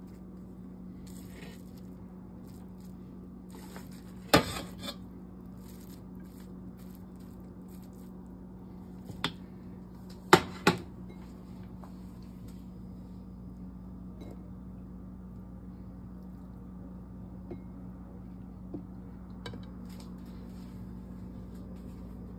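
Sharp clinks of kitchenware as beef biryani is dished from a pot onto a ceramic plate: one loud knock about four seconds in, another near nine seconds, and a quick pair just after ten seconds. A few faint ticks come later, over a steady low hum.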